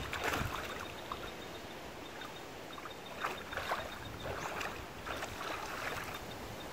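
Shallow creek water splashing and sloshing as a person wades barefoot through a rock pool and dips both hands in, a string of separate splashes about a second apart.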